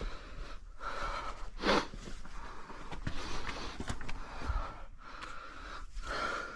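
A caver breathing hard from exertion, long noisy breaths in and out one after another, with a few light knocks and scrapes.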